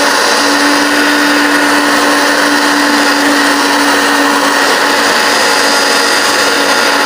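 Electric blender switched on abruptly and running at a steady pitch, grinding fresh herbs, green chillies and garlic with a little water into a wet chutney paste.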